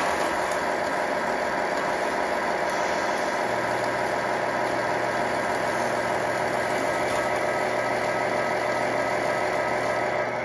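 1/14 Tamiya Grand Hauler RC semi truck running steadily under load as it drags the pull sled, a constant mechanical whirr with a low hum joining about three and a half seconds in.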